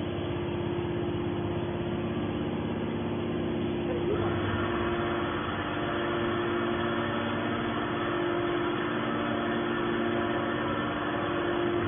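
Hydraulic scrap metal baler running with a steady hum; about four seconds in its sound grows fuller and brighter.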